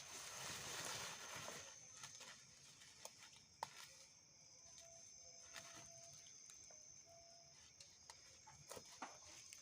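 Quiet forest ambience: an insect's steady high-pitched drone runs throughout, with a soft rustle in the first two seconds and a few scattered small clicks and taps.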